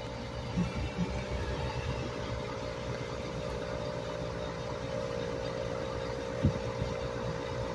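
Steady mechanical hum of a motor or engine running, with a few light knocks.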